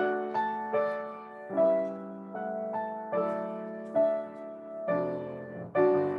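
Solo piano playing a slow, gentle Chinese folk-melody arrangement: single notes struck one after another, each ringing and fading, over a held lower note.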